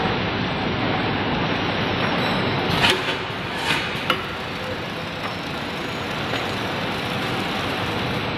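Steady mechanical running noise of a paper-straw production line's machines, with a few sharp knocks about three to four seconds in.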